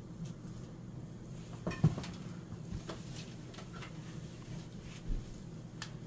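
Hunter R52 ceiling fan running at its factory medium speed with a steady low hum. A sharp knock comes about two seconds in, with a few lighter clicks and a soft thump later.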